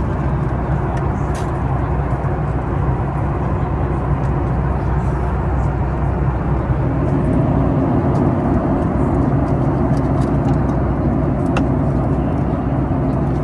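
Steady cabin noise of a Boeing 737 MAX 9 airliner in flight: a constant low rumble of engines and rushing air, with a few faint small clicks.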